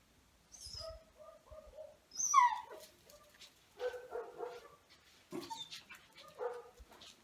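Dog whining and whimpering in several short cries, the loudest a high yelp that falls sharply in pitch about two seconds in.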